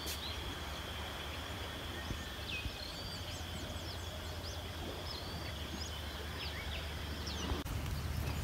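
Birds chirping with many quick, short sweeping calls over a steady high-pitched hum and a low steady rumble.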